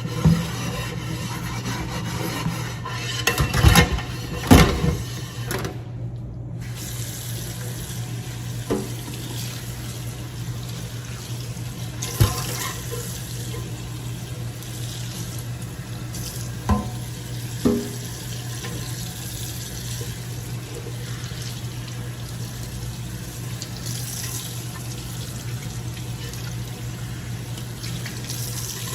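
Tap water running steadily into a sink while the scrubbed microwave turntable is rinsed, with a few knocks: a cluster about four seconds in, one near the middle and two later on.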